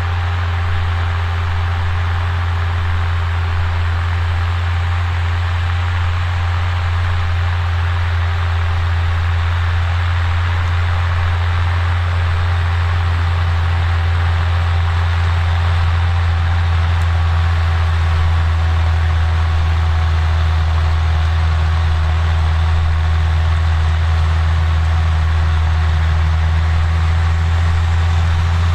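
Fendt Favorit 818 tractor's six-cylinder diesel engine running steadily under load while pulling a Väderstad Rapid A600S seed drill, growing slightly louder as it comes closer.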